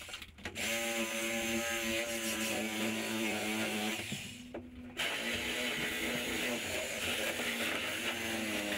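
A power tool motor running in long stretches, its pitch wavering slightly with the load. It stops briefly just after the start and again about four and a half seconds in.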